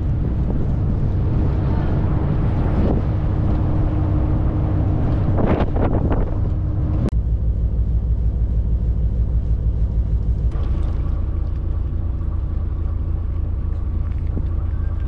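Inland cargo ship's engine running steadily as a low drone, with wind buffeting the microphone. About seven seconds in the wind drops away abruptly, leaving the engine drone on its own.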